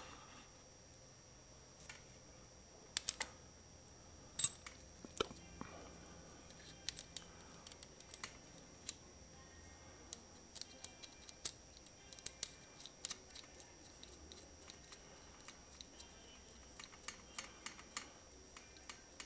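Faint, irregular clicks and light metal taps of small motorcycle fork parts being handled and fitted by hand at the top of the fork's inner rod.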